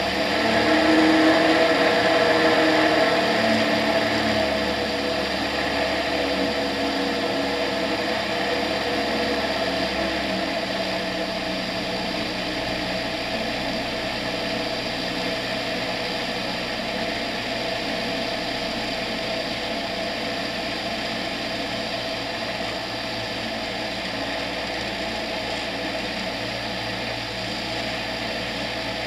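Tetras ultralight aircraft's engine and propeller droning steadily in flight, with a rush of airflow over the camera; louder for the first few seconds, then even.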